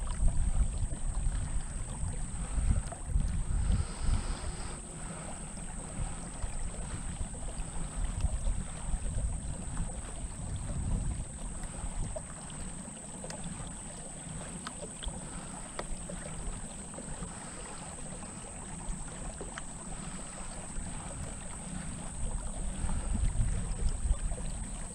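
Water washing along the hull of a pedal-driven Old Town Topwater PDL kayak under way, mixed with a low, uneven rumble of wind on the microphone. A steady high-pitched hiss runs throughout.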